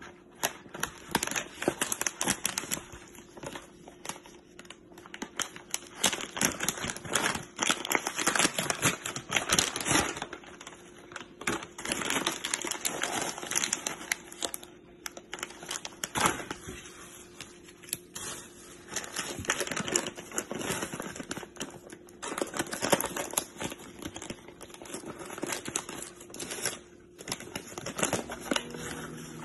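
Gloved hands crinkling and rustling a foil stand-up pouch and the clear plastic bag of crumbly baked cornstarch chunks inside it, in bursts with short pauses.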